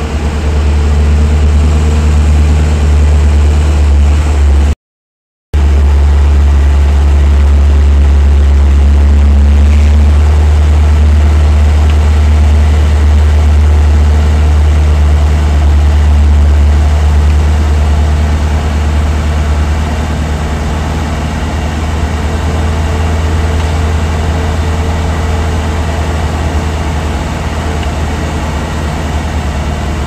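Engine and road rumble heard from inside a moving vehicle: a steady, loud, deep drone. The sound cuts out completely for about half a second about five seconds in.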